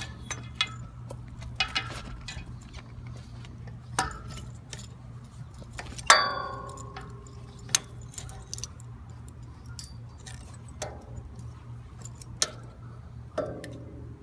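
Abus 6000 folding bike lock being rethreaded through a trike: its hinged steel links click and clink irregularly, with one louder clink that rings briefly about six seconds in.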